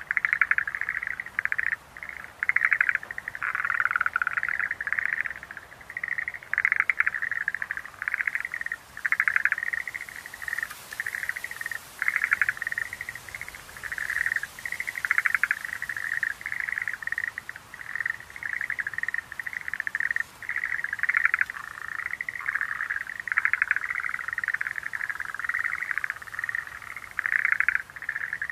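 Chorus of Schlegel's green tree frogs (Rhacophorus schlegelii) calling: many short rattling trills overlap, one after another without a break.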